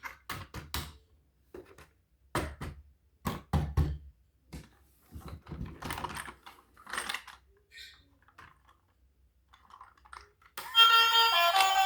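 Sharp clicks and knocks of a toy box and its contents being handled, some in quick runs of two or three. Near the end, loud music starts suddenly.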